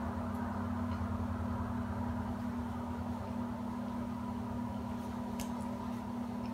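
A steady low mechanical hum, with a few faint clicks near the end.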